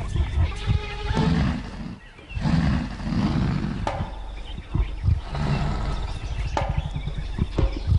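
Leopard snarling and growling in repeated rasping bouts, roughly one a second, with a short break about two seconds in: an open-mouthed threat snarl.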